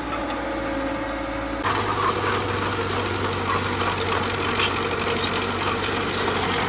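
Small crawler bulldozer's diesel engine running as it pushes dirt, a steady low hum. About 1.7 s in the sound changes abruptly to a louder engine with clattering.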